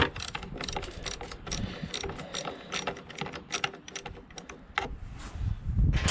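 Hand socket ratchet clicking in quick runs while a screw is backed out of a lawnmower engine's air filter box, with a louder low knock near the end.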